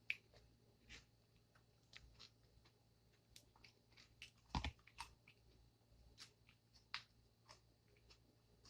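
Close-miked chewing and mouth sounds while eating: soft, scattered clicks and smacks, with one louder knock about halfway through.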